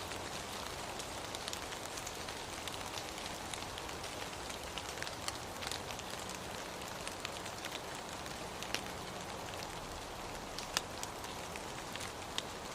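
Steady rain falling: a constant hiss with scattered sharp ticks of individual drops.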